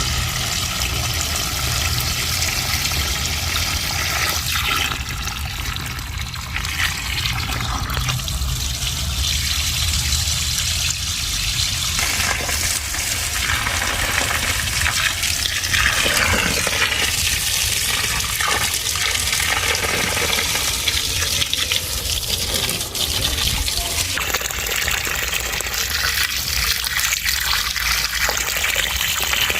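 Water splashing and pattering steadily onto plants as they are watered.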